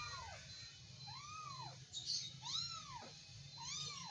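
A kitten meowing over and over, about once a second, each meow rising and then falling in pitch. A short scuffing noise comes about halfway through.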